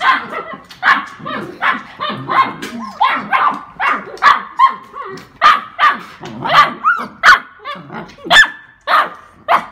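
Saint Bernard puppies barking repeatedly, about one and a half short, high barks a second.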